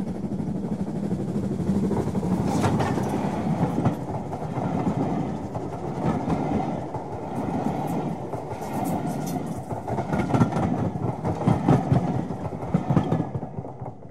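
OO gauge model train running past on the track: a steady rumble with wheels clicking over the rail joints, the clicks coming thicker in the second half before the sound drops away near the end.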